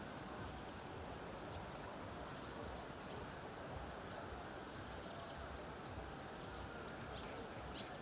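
Outdoor nature ambience: a steady low hiss with faint, scattered short bird chirps and calls throughout.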